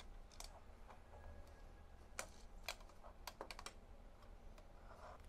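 Faint, scattered clicks and taps of hard plastic parts being handled and pried apart: a gel blaster's plastic barrel shroud being taken off its aluminum barrel.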